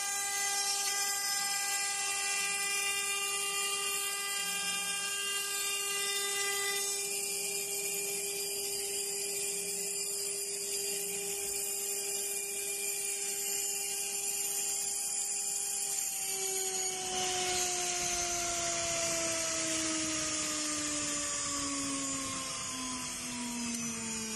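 Spindle motor of a vertical glass drilling and milling machine whining at a steady pitch, with a hiss of water coolant spray. About two-thirds of the way through the hiss grows and the whine slides steadily down in pitch as the spindle slows.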